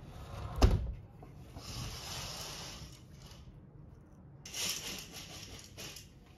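A sliding window pulled shut with a sharp knock about half a second in, then a fabric curtain drawn across it twice, each pull a sliding rustle, the second with a few clicks along the rail.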